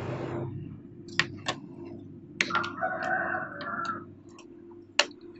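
A rooster crowing faintly for about a second and a half, midway through. Around it are small sharp clicks from component leads and wires being handled on a perfboard, over a steady low hum.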